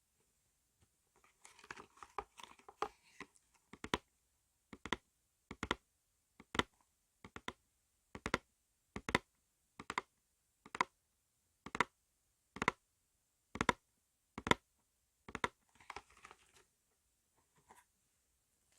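ASMR ear massage: hands rubbing and kneading a microphone's ear close up. It opens with a couple of seconds of crinkly rustling, then about a dozen even rubbing strokes a little under a second apart, then more rustling near the end.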